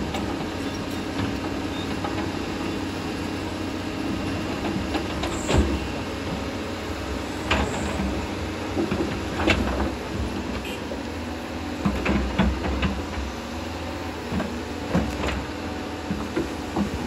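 Doosan excavator's diesel engine running steadily, with a string of sharp knocks and clanks every couple of seconds, heaviest around the middle.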